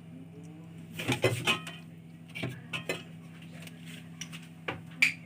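Metal utensil clinking and scraping against a baking tray as a piece of baked pasta is cut and lifted out, in a few short clusters of clinks, with a sharp clink near the end. A steady low hum runs underneath.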